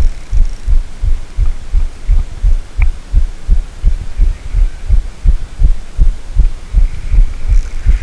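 Even, low thumping at about three beats a second from a spinning reel being cranked hard, carried through a camera worn on the angler's body while a hooked carp is played on a bent rod.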